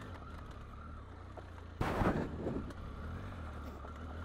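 Triumph Tiger 800's three-cylinder engine running steadily as the motorcycle rides a gravel trail, with one sudden loud knock about two seconds in.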